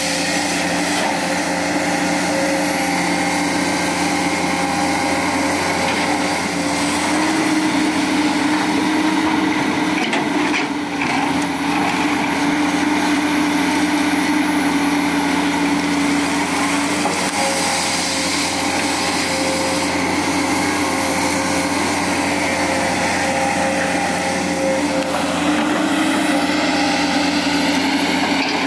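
Komatsu PC200 hydraulic excavator's diesel engine running steadily under working load while the machine digs through refuse.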